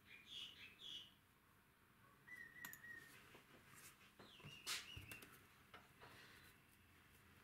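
Near silence with a few faint, short bird chirps and some light clicks.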